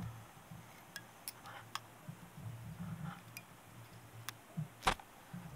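Faint, scattered small ticks and clicks of fingers wrapping mylar tinsel around a hook in a fly-tying vise, with one sharper click near the end.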